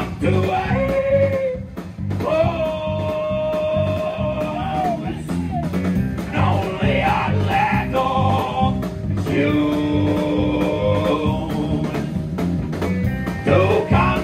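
Live band playing: a man singing lead with long held notes over electric guitar, electric bass and a drum kit keeping a steady beat.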